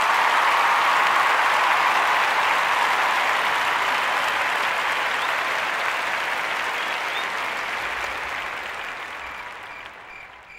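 Crowd applauding at the end of a live band's song, the clapping slowly fading out. Crickets chirping in a steady rhythm become audible near the end.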